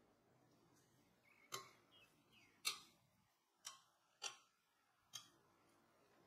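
A metal slotted spoon clicking against the side of a pot while fluffing cooked basmati rice: five short, sharp clicks roughly a second apart, the second one the loudest.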